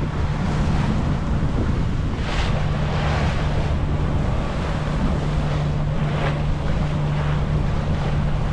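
Sailboat under way while motor-sailing: the steady low hum of its engine under wind buffeting the microphone and water rushing past the hull, with a couple of louder wave swooshes.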